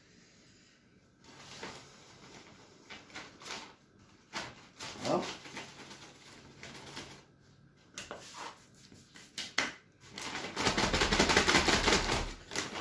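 A plastic bag of carp bait crinkles and rustles as it is handled and liquid attractant is poured in. Near the end comes about two seconds of loud crinkling as the bag is shaken and worked to mix the bait with the liquid.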